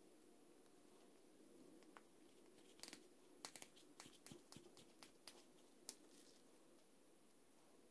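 Faint clicks and taps of small wooden parts being handled, a small wooden disc pushed onto a thin dowel. A quick run of light clicks comes in the middle, over quiet room tone.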